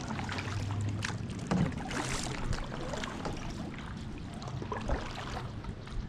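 Canoe being paddled on a lake: paddle strokes in the water, with splashing and dripping and a few light knocks, and a brighter splash about two seconds in.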